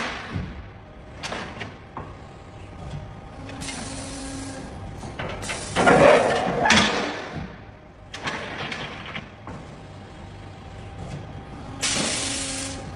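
CNC press brake at work bending a long sheet-metal part: a series of hissing and clunking mechanical bursts as the machine cycles, the loudest about six seconds in and another near the end, with a brief low hum twice.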